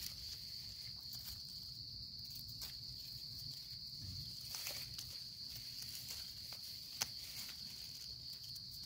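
Steady high-pitched drone of forest insects, with faint scattered clicks and rustles as a knife cuts mushrooms out of the soil and leaf litter; one sharp click about seven seconds in.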